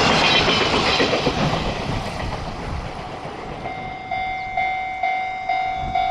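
Freight train running past over the rails, its noise fading away over the first few seconds. About two-thirds of the way in, a level crossing's electronic alarm starts ringing, a pitched ding repeated a little over twice a second.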